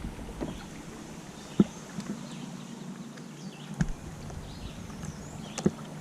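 A 38 lb-thrust Minn Kota electric trolling motor runs steadily on a kayak with a low hum, broken by three sharp knocks about two seconds apart.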